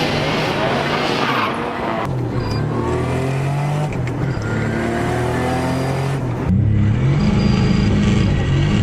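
Car engine accelerating hard, its pitch climbing, dropping at a gear change about four seconds in, then climbing again. The sound changes abruptly twice, as between edited clips: a rushing noise for the first two seconds, and a louder engine over the last couple of seconds.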